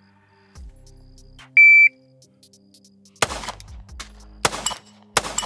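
A shot timer gives its start beep, one steady high tone about a second and a half in. Then a 9mm Glock pistol fires three shots: the first about a second and a half after the beep, the last two closer together near the end.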